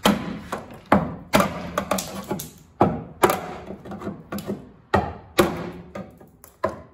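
Sharp knocks of a hammer driving a screwdriver like a chisel to chip thick Bondo body filler off a VW Beetle's rear body panel. There are about ten blows, irregularly spaced, each with a short ring.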